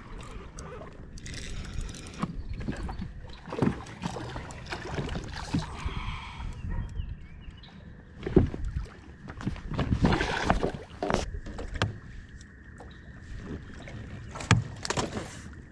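A hooked northern pike thrashing and splashing at the surface beside a small aluminum boat as it is reeled in and landed, with several sharp knocks and bumps on the hull, the loudest about halfway through and near the end.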